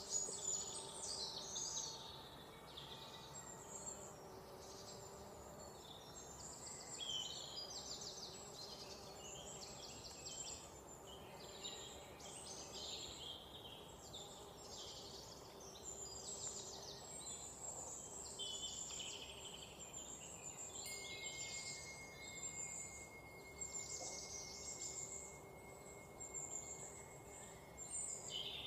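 Forest ambience of many songbirds singing at once, with overlapping chirps and rapid trills over a faint steady background hiss. A single steady high tone, like an insect's, joins about two-thirds of the way through.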